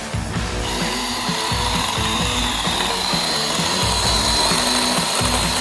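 Ryobi cordless electric chainsaw cutting through a eucalyptus branch: a steady high motor whine over the rasp of the chain in the wood, starting about a second in and stopping sharply at the end. Background music plays underneath.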